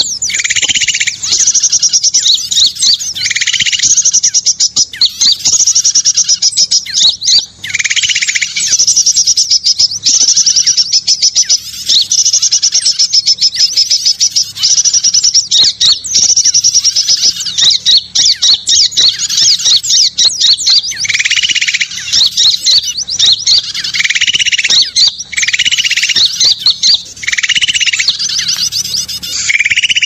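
Bird-lure recording: dense, overlapping high chirps and trills of many small songbirds mixed together, going on without a break.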